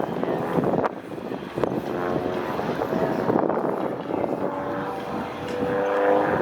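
Propeller airplane engine running with a steady drone that grows somewhat louder toward the end.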